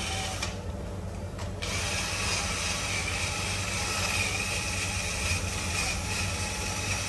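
Steady low mechanical hum, like an engine running.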